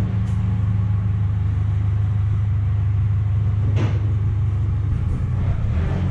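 A heavy vehicle's engine running steadily with a low hum. There is one short, sharp noise about four seconds in.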